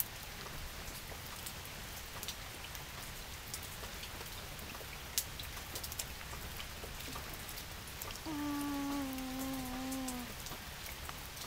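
Steady rain falling, with scattered sharp drips and splats. Past the middle, a single held note slides slightly downward for about two seconds over the rain.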